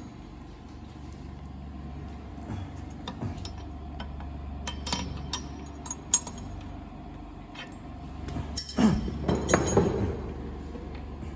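Steady low hum of workshop machinery with scattered small clicks and clinks of metal parts being handled, and a louder clatter about nine seconds in.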